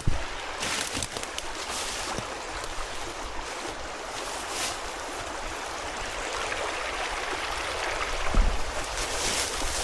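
Creek water running steadily over rocks, with a few short low thumps, the loudest near the end.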